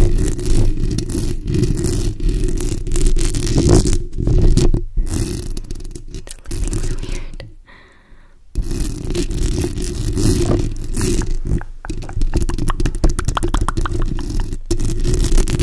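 Long acrylic fingernails scratching and tapping directly on a condenser microphone's bare metal mesh grille, giving a loud, close, rumbling scratchy sound. It stops briefly a little past halfway, then resumes, with a run of quick taps later on.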